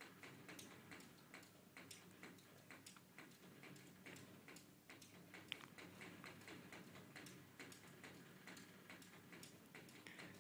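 Faint, irregular light taps and ticks of a cat's paws batting against a mirrored closet door, a few a second, with one sharper click about halfway through, over a low steady room hum.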